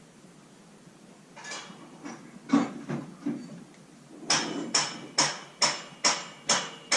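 Hammer blows on metal scaffolding parts. A few scattered strikes come first, then a steady run of about two strikes a second.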